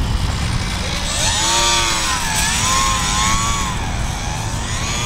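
Electric motor and propeller of a UMX Pitts S-1S micro RC biplane whining as it flies close past, starting about a second in; the pitch climbs and then wavers up and down with throttle and passing, over a steady low rumble.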